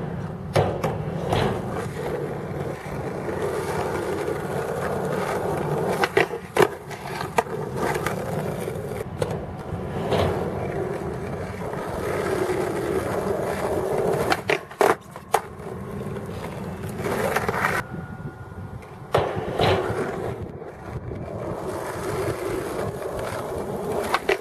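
Skateboard wheels rolling on concrete with a steady rumble, broken again and again by sharp clacks as the board is popped and lands. The deck also scrapes along a low flat rail during frontside boardslides.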